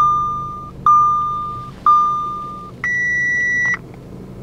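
Audi A4 instrument-cluster warning chime: three single-pitch dings about a second apart, each fading away, then one higher, steady beep of just under a second, the car still flagging faults just after its ECU was flashed. The engine idles as a low steady hum underneath.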